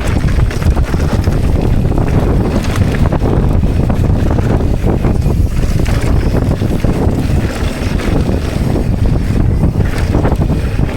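Wind buffeting the microphone of a camera on a mountain biker riding downhill, a loud unbroken low rumble with scattered short knocks from the bike over rough ground.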